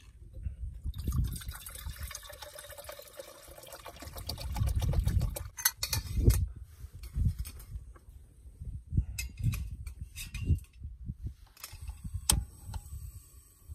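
Water poured from a plastic bottle into a stainless steel camp pot, running for several seconds, followed by metal clinks and clicks as a lid is fitted onto the pot, with one sharp click near the end.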